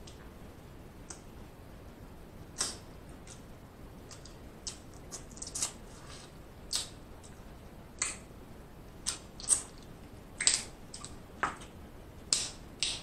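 Snow crab being eaten close to the microphone: irregular sharp clicks, crackles and wet smacks of shell being snapped and picked and of meat being chewed, coming more often in the second half.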